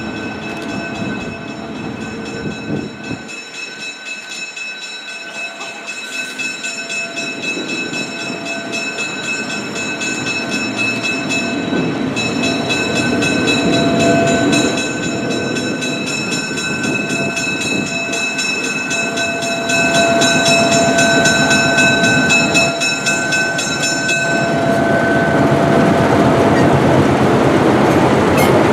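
Diesel locomotive slowly approaching and passing close by with its train, its engine rumble growing louder. A steady high ringing runs over it and stops a few seconds before the end.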